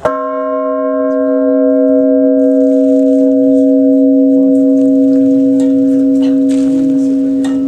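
Church bell struck once, then ringing on. The higher tones fade within a couple of seconds while a deep hum holds steady.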